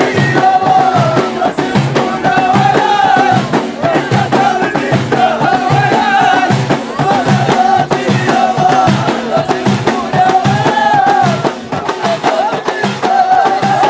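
Ahidous: a line of men singing together in repeated sung phrases over bendir frame drums beaten in a steady rhythm.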